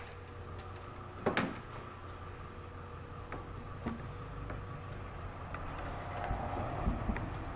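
Light handling knocks and clicks from a handheld multimeter and its test leads being set up on a car battery, with one louder knock about a second and a half in, over a steady low hum.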